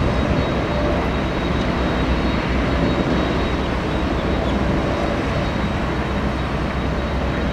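Steady rumble and hiss of jet aircraft noise at an airport, with a faint high whine on top.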